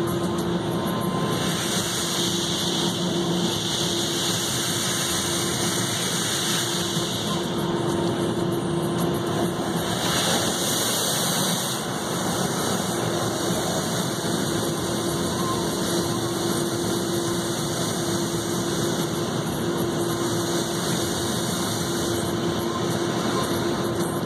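Automatic car wash heard from inside the car: water spray hissing against the windshield and body over a steady machine hum. The spray swells and fades several times.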